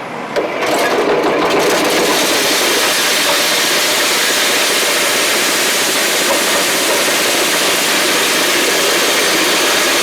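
Feed milling machine running loudly and steadily, grinding dried omena into fish meal; its noise jumps sharply about half a second in and settles at full level within a second or so as it takes up the load.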